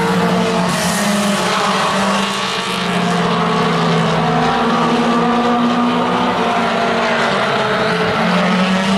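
Mini stock race cars' four-cylinder engines running at speed around an oval track: a steady drone of several engines together, holding an even pitch.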